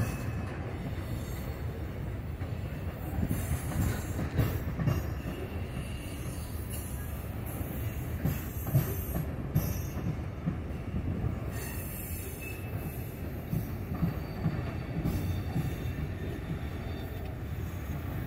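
Freight cars rolling past: a steady low rumble of steel wheels on rail with irregular thumps, and a faint wheel squeal now and then.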